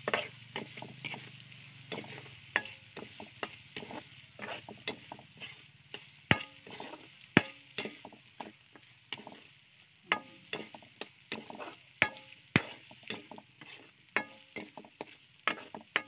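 A metal utensil scraping and knocking against a wok as chicken pieces, onion and tomato are stir-fried in hot oil. Sharp, uneven clicks come over a light, steady sizzle.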